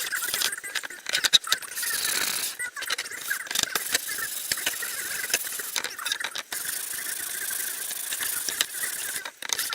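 Continuous rough scraping, broken by scattered clicks and a few short pauses.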